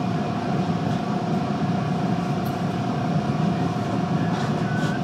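Bombardier T1 subway train rolling into a station, heard from inside the car: a steady rumble of wheels and running gear with a steady high whine over it.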